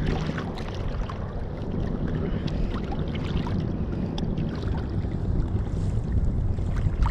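Wind buffeting the microphone over a choppy sea, with water slapping around a small fishing boat.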